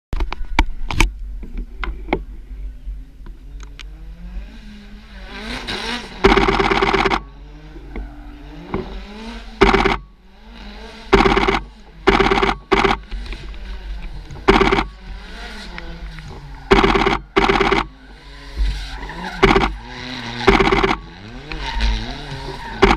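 Drift cars' engines revving up and down with tyre squeal in the background, broken by about ten short, loud bursts of rapid clicking from a DSLR's continuous-shooting shutter, each lasting up to about a second.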